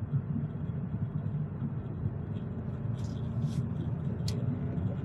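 Steady low background rumble, with a short hiss about three seconds in and a sharp click a little after four seconds.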